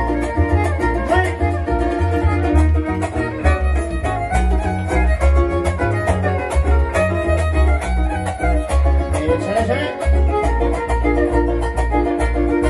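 Live dance music: a violin carrying the melody over strummed guitars and a steady, pulsing bass beat.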